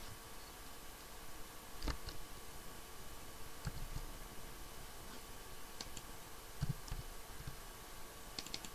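Faint, scattered computer keyboard keystrokes, about eight separate clicks spread unevenly, over a faint steady hum.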